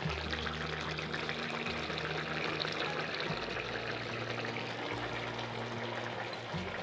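Crab and pumpkin curry boiling in a wok: a steady bubbling hiss.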